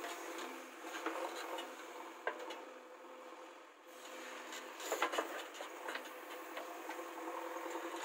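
JCB 3DX backhoe loader digging its bucket into dry soil: a faint, steady engine hum with scattered clicks and scrapes of earth and stones against the bucket.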